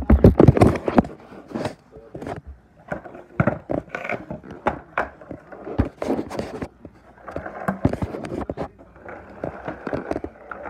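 Irregular knocks, clicks and scraping from a toy limousine being handled and moved about on a wooden floor, loudest in the first second.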